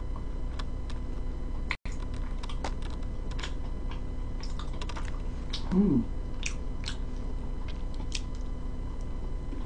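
Soft chewing and wet mouth clicks from eating a pastry, scattered faint ticks over a steady low hum, with a short falling hummed "mm" about six seconds in.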